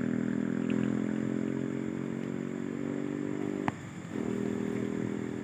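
A small engine idling with a steady hum. About three and a half seconds in there is a sharp click, and the hum cuts out for about half a second before coming back.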